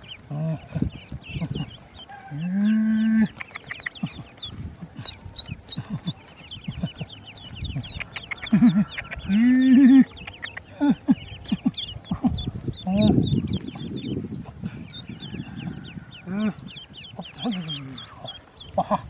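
A clutch of ducklings peeping: many rapid, high-pitched chirps overlapping throughout as they are held and handled. A few lower, drawn-out calls with a rising-then-falling pitch cut through now and then, the loudest of them about three seconds, eight seconds and ten seconds in.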